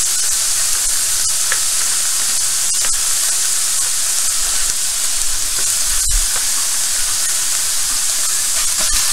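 Sliced onions and garlic sizzling in a hot stainless steel pan, left to sit so they take on color: a steady frying hiss with scattered small crackles and one thump about six seconds in.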